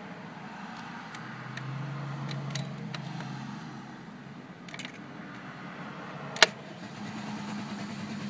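A truck's starter trying to crank an engine that won't turn over or start: a low drone for a couple of seconds, light ticks, then one sharp loud click near the end.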